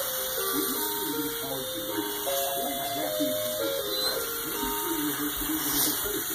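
Toy Christmas train playing a tinny electronic melody, one note at a time.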